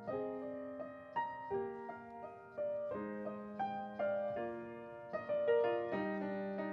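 Solo grand piano playing a slow, quiet piece: melody notes over held chords, a new note struck about every half second and left to ring.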